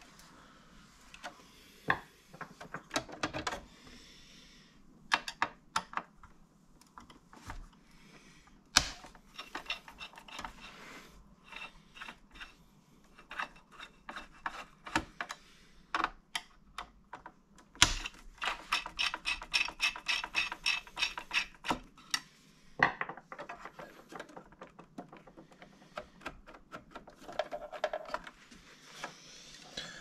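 A screwdriver turning screws out of a Dell 7010 desktop's steel case, with scattered sharp clicks, scrapes and rattles of metal parts being handled. A little past the middle comes a quicker run of small clicks lasting a few seconds.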